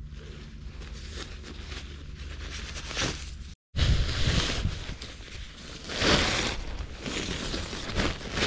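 A synthetic-fabric ground sheet rustling and flapping as it is pulled out of its bag and shaken open, loudest about four and six seconds in. Before that, softer rustling of its stuff sack being opened.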